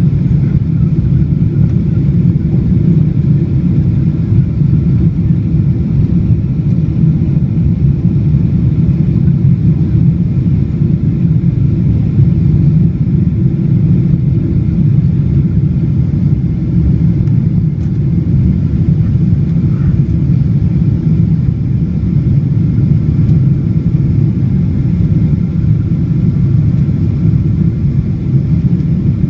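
Steady low rumble of engine and airflow noise inside a Boeing 777-200 cabin, with no change in level.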